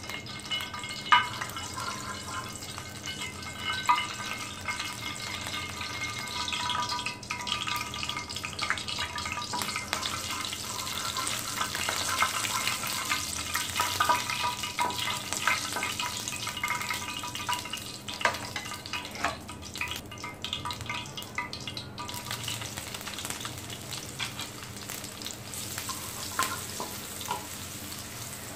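Oil sizzling in an aluminium frying pan as seeds and then carrot sticks fry. A spoon stirs and now and then taps or scrapes the pan, giving short sharp clicks over the steady sizzle.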